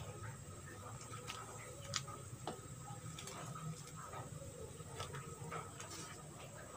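Faint kitchen sounds: scattered light clicks and ticks, a few louder ones about two seconds in, over a low steady hum.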